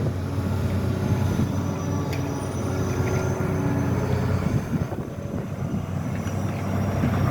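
Diesel engine of heavy road-construction machinery running steadily, a low, even engine sound.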